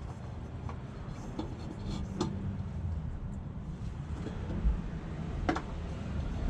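A steady low rumble with a few light clicks and taps, as a new oil filter is handled and started onto its mount by hand.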